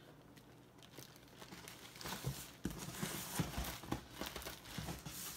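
Large clear plastic packaging bag crinkling and rustling as it is handled inside a cardboard box, with a few dull knocks; it starts about two seconds in, after a quiet stretch.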